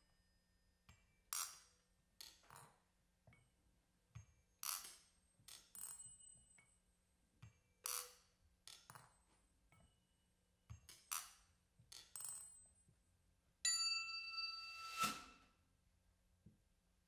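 Sparse, quiet strikes on small percussion: sharp clicks and clinks, some leaving a brief high ring, spaced about a second apart. Near the end a bright pitched tone with overtones is held for about two seconds, with a louder strike under it.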